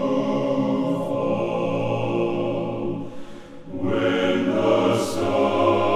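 Men's choir singing an African American spiritual in harmony, holding long chords, with a short break about three and a half seconds in before the next phrase begins.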